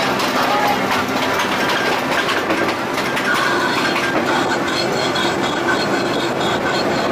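Casey Jr. Circus Train, a small ride train, running along its track as heard from the front car: a steady rumble and rattle of wheels on rails, with a regular clicking joining in during the second half.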